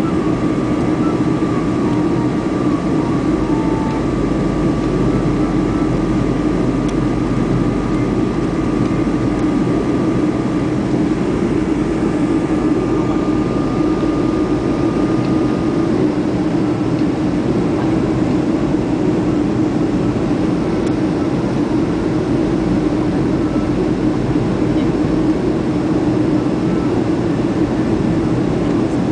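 Steady cabin noise inside a Boeing 737-400 in flight: the hum of its CFM56 turbofan engines mixed with the rush of air past the fuselage. A faint high steady whine runs under it and stops about halfway through.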